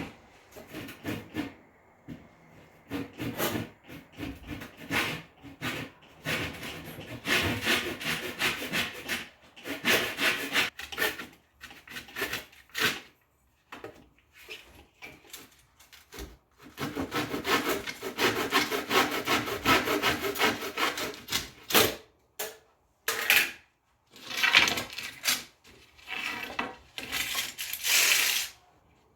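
Saw cutting through a wooden board, in runs of strokes separated by short breaks.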